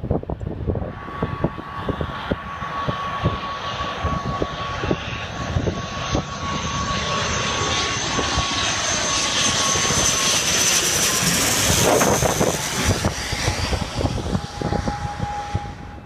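ATR 72 twin-turboprop airliner passing low overhead on approach to land. Its engine and propeller noise builds, is loudest about twelve seconds in, then fades, with a steady high whine that drops in pitch as it goes past. Wind gusts buffet the microphone throughout.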